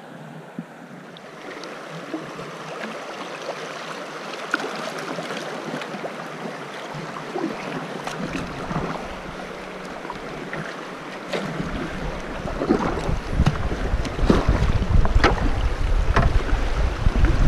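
Paddle strokes splashing and water rushing around an inflatable kayak as it moves into faster, rippled current. The sound gets louder in the second half, where a low rumble joins in.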